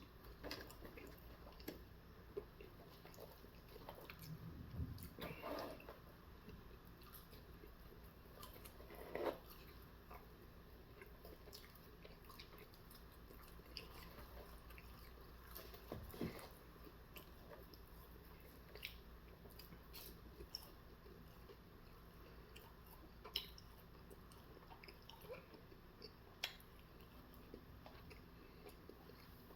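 Faint chewing and mouth sounds from eating, with scattered soft clicks and smacks every few seconds.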